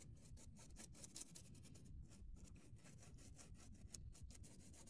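Damp paintbrush bristles scrubbing over pastel-chalk weathering on a card model platform, working the powder to lighten a dark patch: faint, quick scratchy strokes, several a second.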